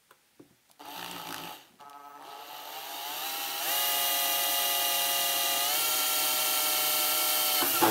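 An electric drill motor whining as it bores a hole through a metal amplifier chassis. It starts about a second in, briefly falters, then rises in pitch and holds steady, steps up slightly, and stops abruptly near the end.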